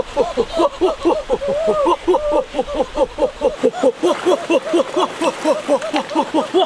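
Excited vocalising from boys, a fast, even run of high-pitched yelping syllables, about five a second, with several voices overlapping.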